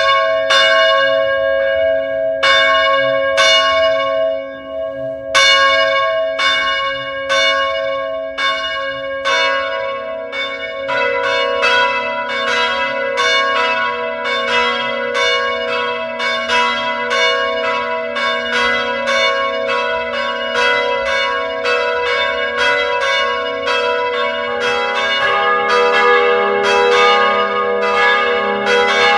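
Church bells ringing a peal: a series of ringing strikes, about one a second at first, then faster and overlapping from about ten seconds in, over a sustained hum of the bells.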